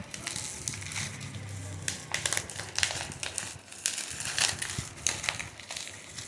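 Crinkling and rustling of a smartphone's packaging being handled and opened, in irregular crackles.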